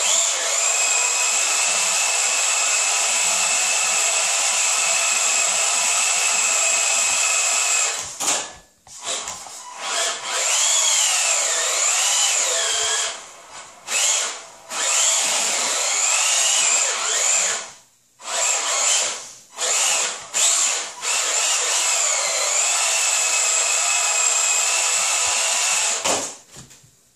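Tamiya Frog radio-controlled buggy's electric motor and gears whining, held steady at full throttle for about eight seconds, then in a run of shorter bursts with the pitch rising and falling, cutting out briefly several times between bursts.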